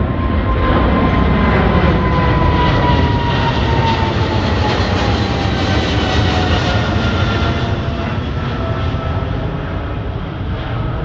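Boeing 777's twin jet engines at takeoff power as the airliner climbs out overhead: a loud, steady jet rumble with a whine that slowly falls in pitch as the aircraft draws away, easing slightly near the end.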